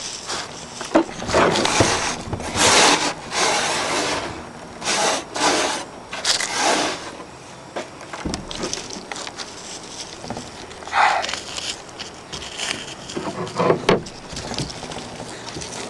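Hands rubbing, patting and scraping a white mound of damp mix to shape a model volcano, in a run of uneven strokes, with a quieter stretch in the middle.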